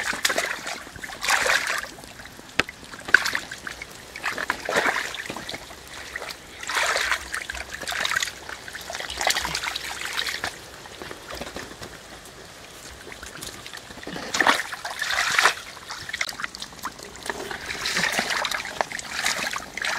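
Muddy canal water being bailed by hand with a plastic basin: a splashing rush each time a scoop is thrown out, repeating every two seconds or so, to drain the stretch of canal.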